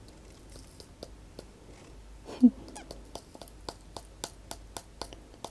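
Bonchili chili flakes being shaken from a flip-top shaker bottle onto sushi rolls: a run of light ticks, about four a second, from about halfway through. A brief voiced 'hm' comes a little before the ticks.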